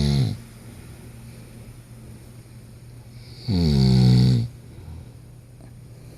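Loud snoring: one snore tails off just after the start, and another, about a second long, comes about three and a half seconds in, each dropping in pitch as it goes. A steady low hum runs underneath.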